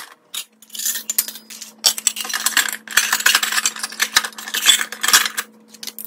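Toy stainless-steel pots, lids and utensils clinking and clattering against each other and the plastic bin as they are packed in, with many quick metal knocks.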